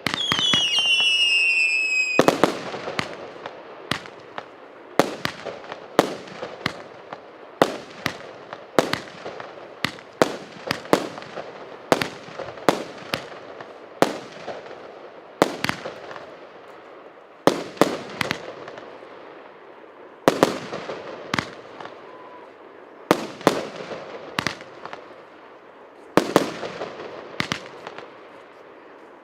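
R7533 'Ekspeditsiya' 100-shot fireworks cake firing. A falling whistle in the first two seconds, then a steady run of sharp bangs from the shells bursting, about one or two a second.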